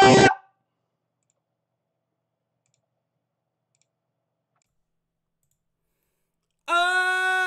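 A man's loud held shout cuts off just after the start. About six seconds of dead silence follow. Near the end comes a held vocal note of about a second at nearly the same pitch.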